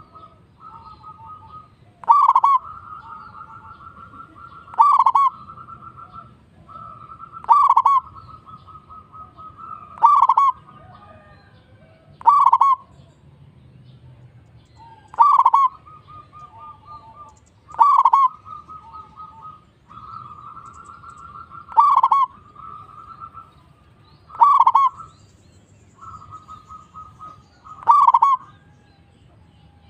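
Zebra doves (perkutut) cooing. A loud note comes roughly every two and a half seconds, and a softer rapid trill of staccato coos fills the gaps between them.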